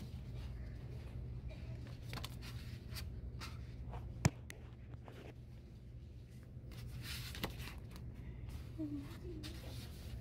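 Quiet shop room tone: a steady low hum with scattered light clicks and rustles of a handheld phone and footsteps, and one sharp click about four seconds in. A faint brief voice is heard near the end.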